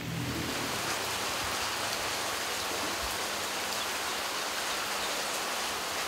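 Heavy rain falling steadily, an even hiss.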